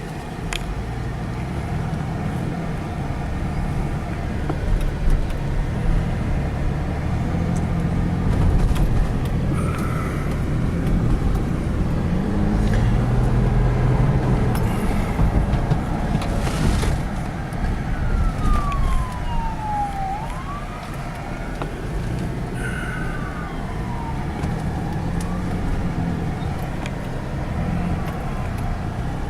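Steady low rumble of a car driving. About two-thirds of the way through, a siren wails for several seconds, its pitch falling, rising and falling again.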